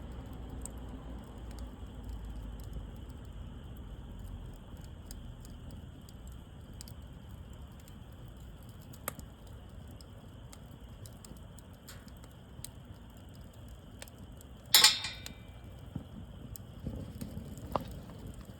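Wood fire burning with scattered small crackles over a low steady rumble, and one loud sharp pop about fifteen seconds in, with a smaller one near the end.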